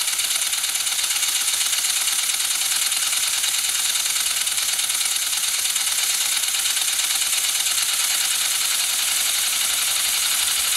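LEGO compressed-air piston engine running steadily, a fast even clatter of its plastic parts over the hiss of escaping air.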